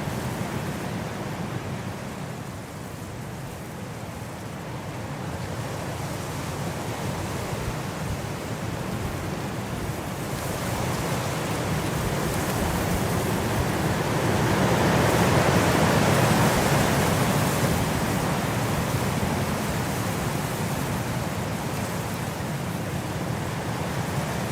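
Wind blowing steadily, dipping a few seconds in and then rising into a stronger gust about halfway through before easing back.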